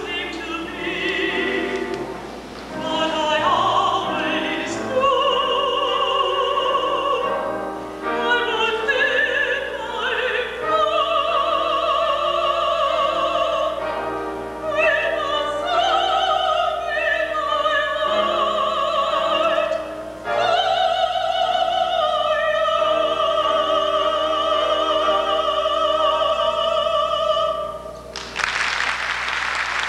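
A woman singing a slow song solo, holding long notes with a wide vibrato. The song ends about two seconds before the end and the audience starts applauding.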